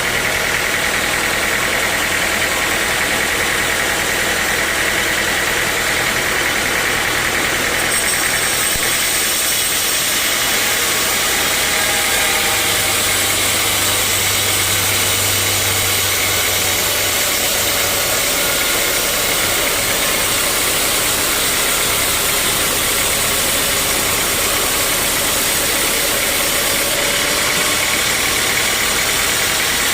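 Sawmill saw and its engine running steadily, a loud continuous noise over a low engine hum.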